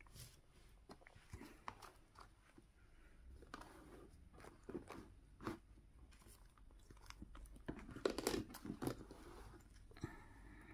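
Paper banknotes and the plastic pouches of a cash-envelope binder being handled: faint rustling with scattered small clicks and crinkles, busiest about eight seconds in.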